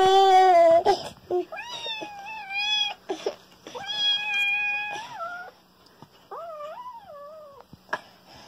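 A toddler's crying stops about a second in, followed by a small black kitten meowing several times, in high drawn-out meows.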